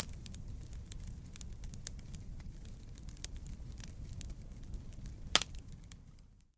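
Wood fire crackling in a fireplace: a steady low rumble of flames under scattered sharp crackles, with a louder pop at the start and another near the end, then a quick fade-out.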